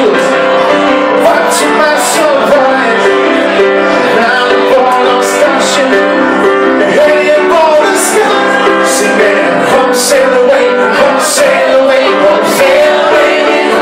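Live male vocal with piano accompaniment: a singer performing a pop-rock song at the piano, with steady, continuous playing.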